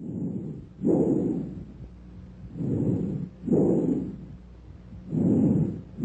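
Bronchial breath sounds heard through a stethoscope: hollow, rushing breaths repeating about every two and a half seconds, each a shorter inspiration followed by a louder, longer expiration, separated by a silent gap.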